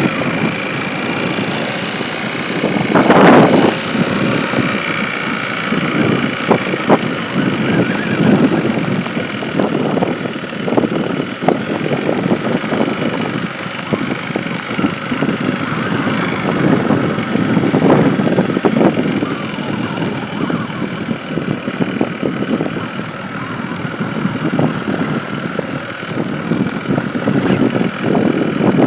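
A motor vehicle's engine running steadily, with many irregular knocks and jolts; the loudest comes about three seconds in.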